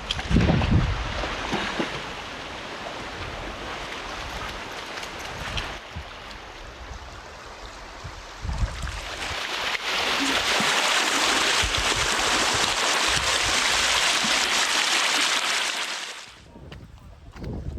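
Creek water running steadily, growing louder about nine seconds in and then cutting off suddenly near the end.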